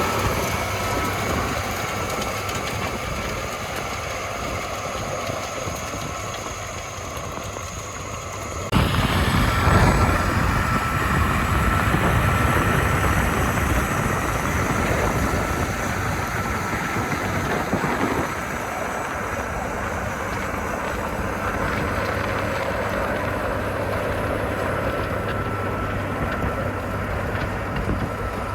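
Challenger 875C tracked tractor's engine running steadily under load while pulling a Gaspardo Diablo 600 disc harrow, with a steady high whine over it. The sound jumps abruptly louder about nine seconds in.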